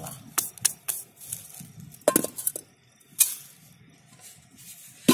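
Smooth river stones knocking against one another in a string of sharp clacks, about seven over three seconds, as they are set in place to form a stone cooking stove.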